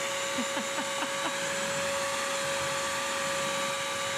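BISSELL Crosswave wet/dry vacuum running with a steady whine, its motor and brush roll vacuuming and scrubbing up a wet food spill. A few short, faint chirps sound in the first second or so.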